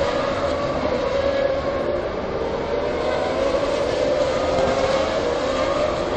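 Distant GP2 race cars' V8 engines running on the circuit. Several engine notes overlap into one steady drone, its pitch drifting slowly up and down.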